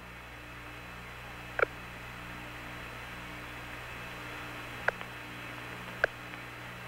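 Hum and hiss of the open air-to-ground radio channel, a steady low hum with a faint regular pulse in it. Three brief clicks come about a second and a half, five and six seconds in.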